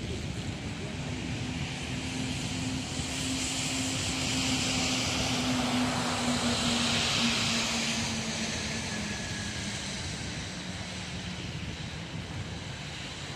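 A vehicle passing by: its noise swells over several seconds and then fades, with a steady hum that drifts slightly lower in pitch as it goes past, over background street noise.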